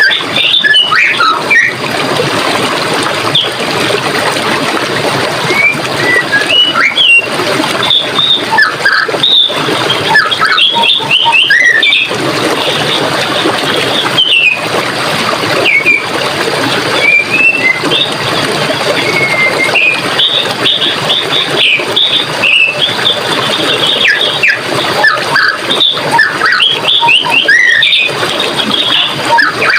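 Running water flowing steadily, with small birds chirping and singing over it in many short, quick calls.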